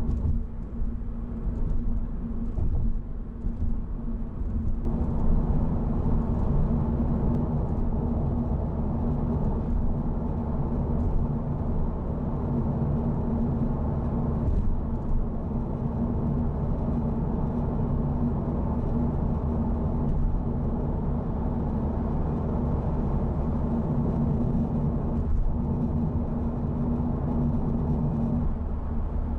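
Honda Civic Type R (FL5) being driven, its turbocharged four-cylinder engine and tyre noise making a steady low drone. It grows louder about five seconds in, then holds steady.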